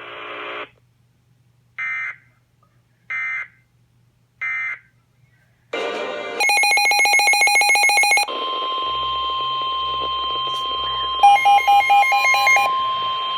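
Weather radio alert tones: three short data bursts end one warning message, then a new alert starts with about two seconds of rapid pulsing beeps followed by a long steady alarm tone, with extra beeping layered over it near the end.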